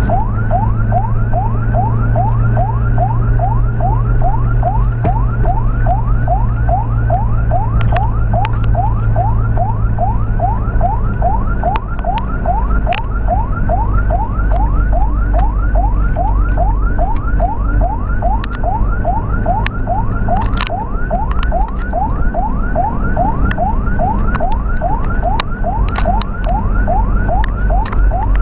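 Ambulance electronic siren in fast yelp mode: a rising sweep repeated about two and a half times a second, over a steady low vehicle rumble.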